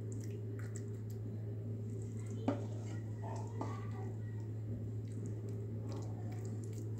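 Thick, syrupy amla murabba being spooned into a glass bowl, with soft wet squishing, a few light clicks and one sharp tap about two and a half seconds in, over a steady low hum.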